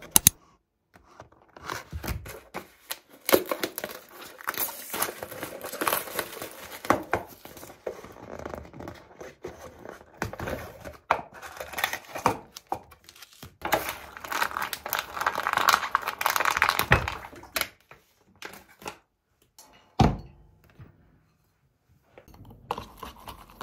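Packaging being torn open and crinkled, with irregular rustles and clicks over most of the stretch. A single thud comes about twenty seconds in.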